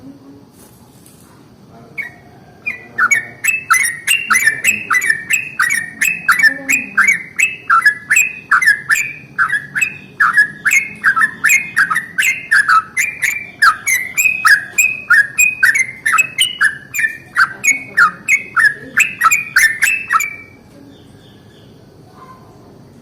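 Yellow-vented bulbul (trucukan) singing a long rapid roll: short sliding whistled notes repeated quickly for about seventeen seconds, starting about three seconds in and stopping sharply about twenty seconds in.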